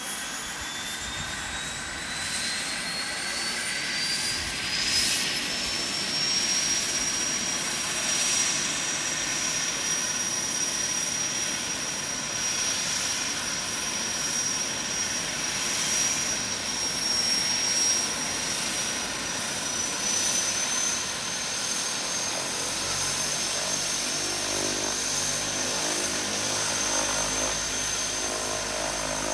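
Twin-engine turboprop plane's turbine engine spooling up: a high whine rises in pitch over the first six seconds or so, then holds steady at idle. A lower engine hum joins about three quarters of the way through.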